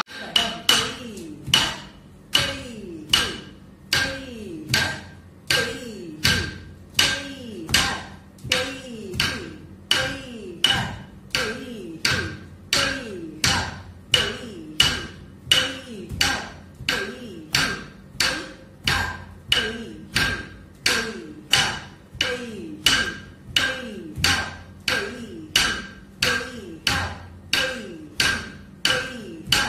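Wooden stick striking a wooden block (thattukazhi) in a steady Bharatanatyam practice beat, about two sharp strikes a second.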